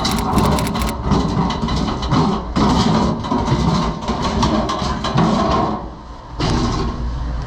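Commercial refrigerator's condensing unit running with a steady low hum, under uneven clattering and rustling from handling close to the microphone. The refrigerator is low on refrigerant from a leak.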